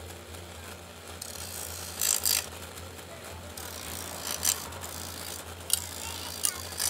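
Electric bench grinder running with a steady hum while a machete blade is pressed to the wheel to sharpen it. Several short, harsh grinding bursts come as the steel touches the wheel: a double one about two seconds in, the loudest, and others at about four and a half seconds and near the end.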